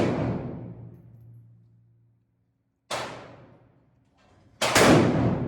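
Rifle shots from a Beryl assault rifle firing 5.56 mm NATO rounds, each echoing and fading in the indoor range. The tail of one shot rings out at the start, another shot comes about three seconds in, and two quick shots follow about a second and a half later; the last of these is the loudest.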